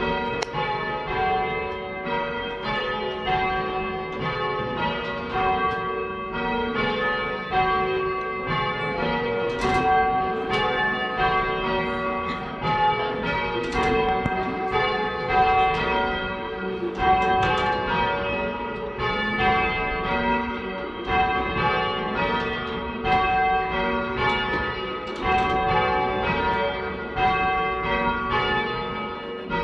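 A ring of three church bells, cast by Taylors of Loughborough in 1925, rung full-circle in change ringing, the bells striking one after another in a steady, even rhythm.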